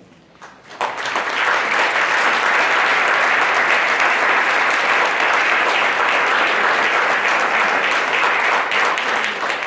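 Audience applauding, starting about a second in, holding steady, then tapering off near the end.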